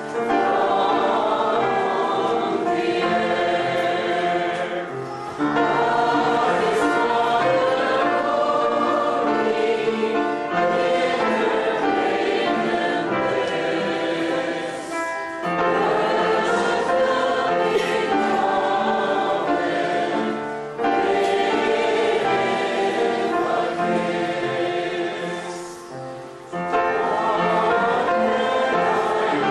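A choir singing a hymn-like piece in sustained phrases, with brief pauses between phrases.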